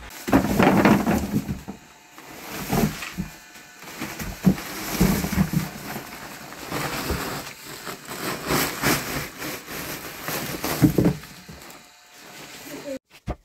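Ears of corn in the husk tumbling out of a woven plastic sack into a plastic tub. The sack rustles and the ears knock against each other and against the tub in irregular clusters.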